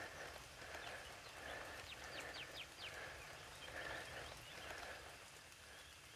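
Faint forest ambience: a soft rustling sound that swells and fades about once a second, with a quick run of four or five bird chirps about two seconds in.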